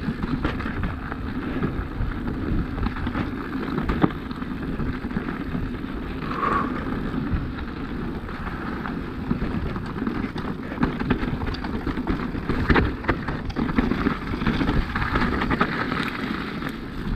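Full-suspension electric mountain bike (2024 Norco Range VLT) rolling down a rocky trail: a steady rattle and crunch of tyres and frame over rock, with a few sharp knocks from harder hits.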